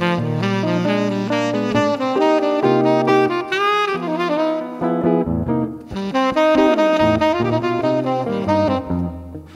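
Jazz duo of saxophone and hollow-body electric guitar playing, the saxophone carrying a melodic line of many short notes with some bent notes over the guitar's chords. The line pauses briefly about halfway through and again near the end.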